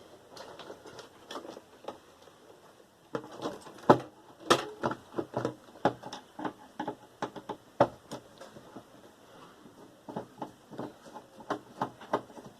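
Irregular clicks, clinks and knocks of hand tools and metal and plastic parts being handled while a Sony VAIO desktop tower is taken apart, with the sharpest knocks about four and eight seconds in.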